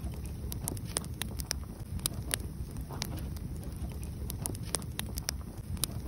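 Wood fire burning, crackling with irregular sharp pops over a low steady rumble.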